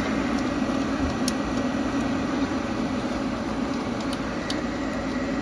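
Steady whir of running equipment cooling fans and air in an equipment room, with a few faint ticks as the power supply's screws are hand-tightened.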